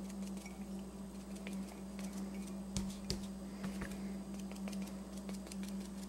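Faint, irregular soft taps of a round foam pouncer dabbing paint onto a ceramic mug, over a steady low hum.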